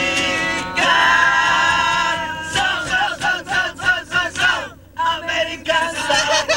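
Music with several voices singing together: a long held note for about two seconds, then short sung phrases in quick pulses, with a brief drop just before five seconds.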